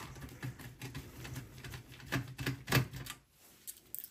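Screwdriver unscrewing a motherboard mounting screw from the steel case: a run of small irregular clicks and scrapes that stops about three seconds in, followed by one more light click.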